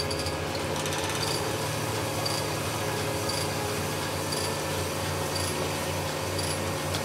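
Vertical cylinder-honing machine running with its hone in a small-block Chevy cylinder bore and a torque plate bolted to the deck: a steady motor hum with a short high tick about once a second.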